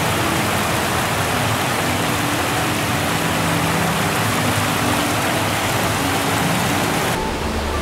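Steady rush of river water spilling over a weir at an irrigation intake. It turns duller near the end.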